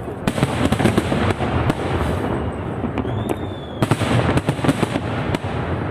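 Fireworks going off in a dense, continuous string of crackling bangs and pops, with a brief whistling tone about three seconds in.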